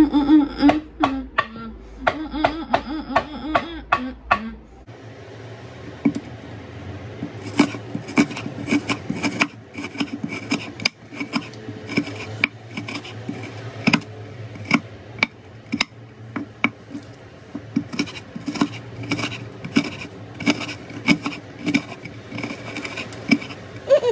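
Kitchen knife chopping an onion on a cutting board: irregular sharp knocks against the board, some in quick runs, starting about five seconds in. Before that, a muffled mumbling voice.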